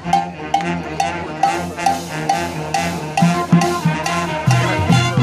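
High school marching band playing: brass and low horns holding notes over drums and a short, steady percussion tap about twice a second.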